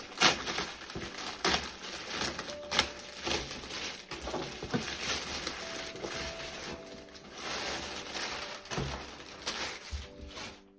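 Cardboard parcel and its packaging being handled and crumpled: irregular rustling, scraping and crinkling with short knocks, as the box is worked at to get it open. Faint background music comes in partway through and again near the end.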